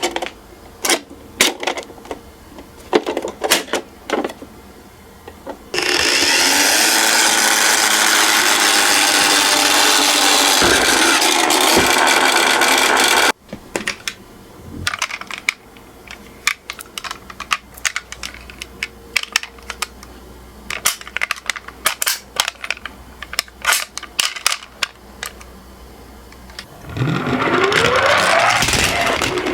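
Toy miniature cars clicking and clattering against a slope track. A loud, steady rolling noise lasts about seven seconds and cuts off suddenly as a car runs down the slope. A rising tone comes near the end.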